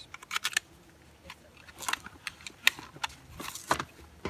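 Handling noise from knives and a nylon backpack: a few sharp clicks and short rustles as the knives are handled and put back into the pack's pocket.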